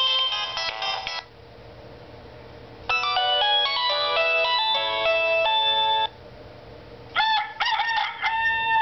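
Nokia 3220 built-in polyphonic ringtones playing loudly through the phone's speaker, one after another. One melody ends about a second in, a short bright tune of quick stacked synth notes plays for about three seconds, and near the end a different tone starts as a run of short warbling notes that slide in pitch.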